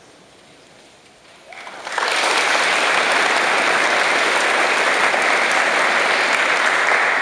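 Audience applauding, breaking out about two seconds in and holding steady and loud.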